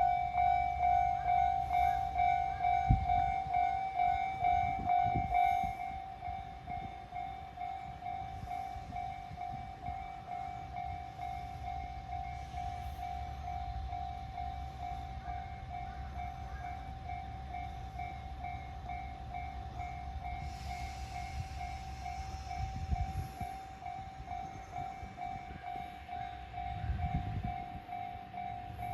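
Japanese electronic level-crossing warning bell ringing: one high tone repeated rapidly and evenly, louder for the first few seconds, over a low rumble. It signals that a train is approaching or passing the crossing.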